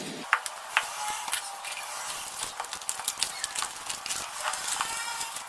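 Raw chicken pieces being mixed into a yogurt and spice marinade in a bowl, making irregular, closely spaced clicks and squishes.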